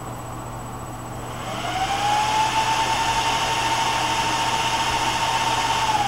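MSI GTX 670 Power Edition's twin Twin Frozr cooling fans running under fan-speed control. About one and a half seconds in they spin up to a higher speed: a rising whine that levels off over a louder rush of air, and it starts to drop again right at the end.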